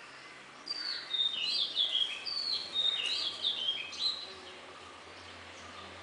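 Red-whiskered bulbul singing a quick run of bright, varied notes for about three seconds, starting just under a second in.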